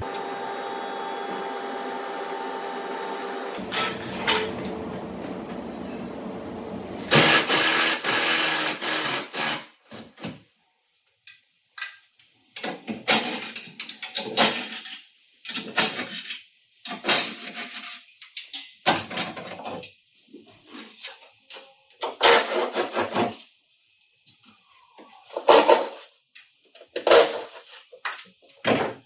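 Workshop tool and handling noises: a steady machine hum for the first few seconds, then a rushing noise, then a long series of irregular knocks, clanks and scrapes.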